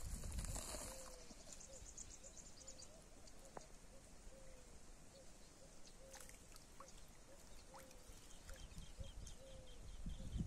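Faint outdoor ambience with a bird calling over and over in short low notes, about two a second, and a few thin high chirps. There is a brief rustle at the very start.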